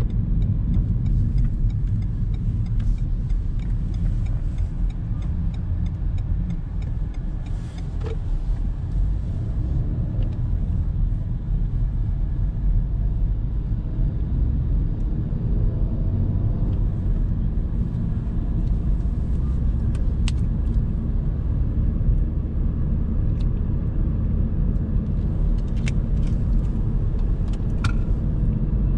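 Renault Megane 4 driving along: a steady low rumble of engine and road noise, with a few light clicks now and then.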